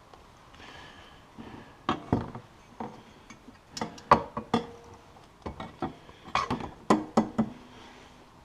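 Metal clinking and knocking as an aftermarket exhaust can is set in place on a snowmobile: a run of sharp, separate knocks from about two seconds in, some with a short metallic ring.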